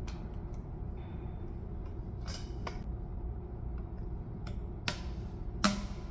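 Scattered light clicks and taps of a PEX fitting, crimp ring and tool being handled and adjusted on the pipe, with one sharper click near the end, over a steady low background hum.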